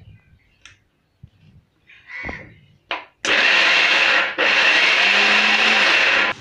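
Electric mixer-grinder running in two short pulses, grinding soaked chana dal with chillies, curry leaves, ginger and cumin into a coarse paste without water. A few light knocks come first as the steel jar is seated and its lid pressed down. The motor then runs about a second, pauses briefly, runs about two seconds more and stops abruptly.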